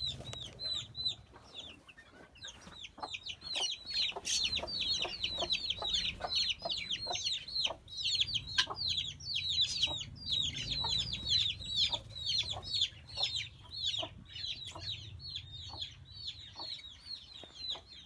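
Domestic chicks peeping without pause, a rapid stream of short, high, falling cheeps, with a hen clucking now and then.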